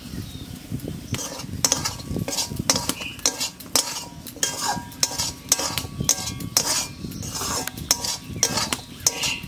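A metal spatula scrapes and stirs dry, crumbly fried mung dal filling around a metal kadai. The scrapes come in a quick, regular rhythm of about two to three a second, starting about a second in.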